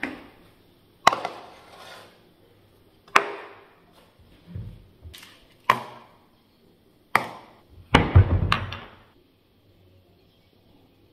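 Kitchenware being set down on a tiled counter: a frying pan, plastic containers and spice jars knock and clatter, with raw chicken pieces going into the pan. About eight separate sharp knocks at uneven intervals, each dying away quickly, the busiest cluster near the end.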